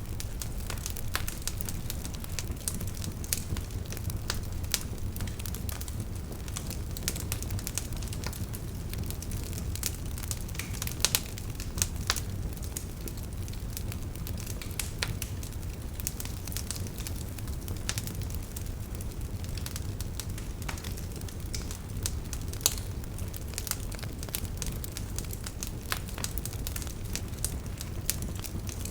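Wood fire burning in a fireplace: a steady low rumble of flame with frequent irregular crackles and pops, a few sharper pops standing out.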